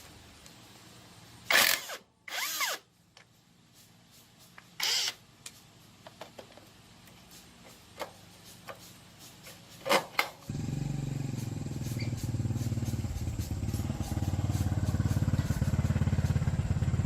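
A few loud knocks and clatters, then about ten seconds in a small engine or motor starts and runs with a steady low pulsing that grows a little louder.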